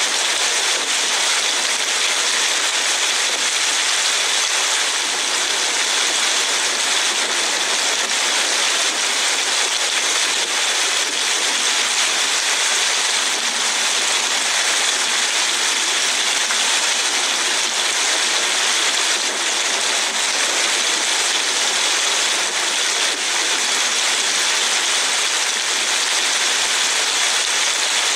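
Steady rushing hiss of a car driving along a rain-soaked road, heard from inside the car.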